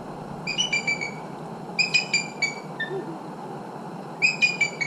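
Bald eagle calling: three quick bursts of short, high piping notes, each burst dropping a little in pitch.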